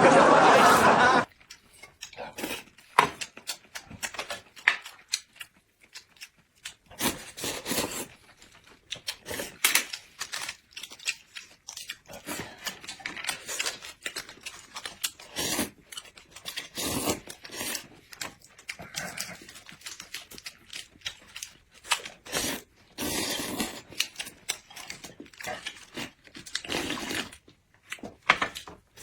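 Close-miked eating sounds: irregular chewing, smacking and crunching in short bursts, opened by a loud rush of noise lasting about a second.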